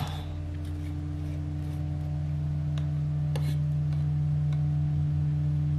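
A steady low hum of several held tones, with a sharp click at the start and a few fainter clicks and taps as small items are handled on the table.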